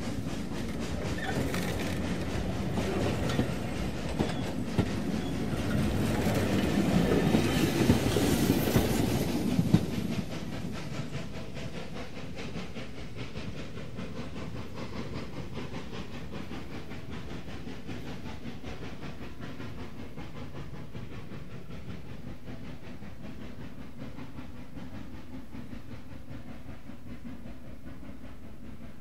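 Steam locomotive working up a steep gradient passes close by, growing louder to a peak about eight seconds in, then dropping sharply at about ten seconds. A steadier, quieter train rumble with wheels clacking over the rail joints carries on after it.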